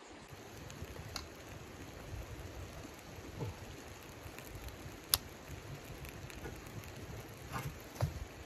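Wood fire crackling in a small portable camp stove with its firebox door open: a steady hiss with scattered small pops, one sharp snap about five seconds in, and a couple of dull knocks near the end.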